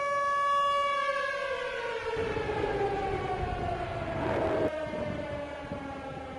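Alert siren holding a steady wail, then winding down in a long falling pitch from about a second in, with a low rumble building beneath it.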